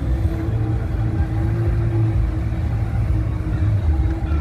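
Motorboat engines running with a steady low rumble and hum.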